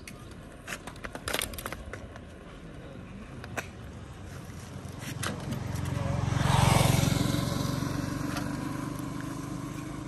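A motor vehicle passing close by: its engine and tyre noise swell to a peak about two-thirds of the way in, then fade. Before it come scattered short scrapes and clicks.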